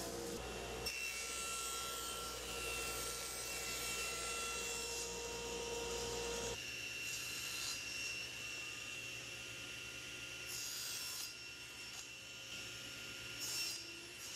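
Thickness planer running steadily as an African mahogany strip is fed through it to thin it down, with a low motor hum. The hum stops about six and a half seconds in. Quieter shop noise follows, with two brief scrapes as a table saw rip fence is slid and set.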